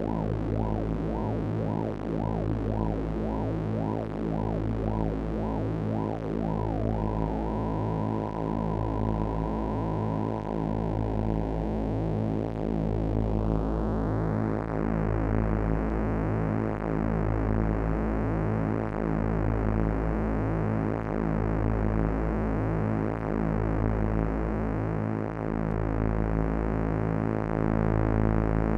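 AnalogFX SER-2020 analog synthesizer holding a sustained, buzzy drone with a low pulse. The filter at first wobbles the tone about twice a second, then holds steady, and about halfway through sweeps up to a brighter, open sound that it keeps.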